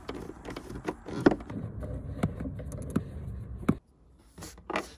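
Hand socket driver with an 8mm socket working out a car's glove box bolts: irregular metallic clicks, taps and scrapes. The sound drops away suddenly near the end, leaving two sharp clicks.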